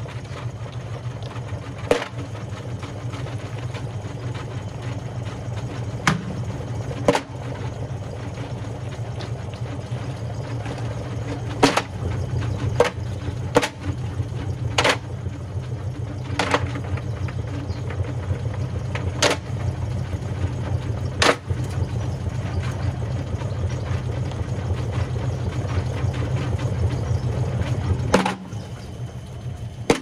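Whirlpool front-loading washing machine tumbling a drum loaded with stones and brick pieces: a steady motor-and-drum hum with loud, irregular knocks as the stones fall against the drum. The hum drops away near the end as the drum slows.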